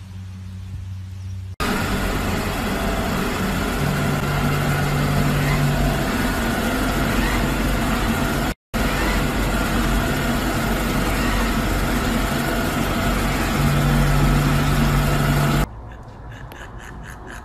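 Robot vacuum cleaner running: a loud, steady rushing noise, with a low hum that comes in twice and a brief cut-out about halfway through.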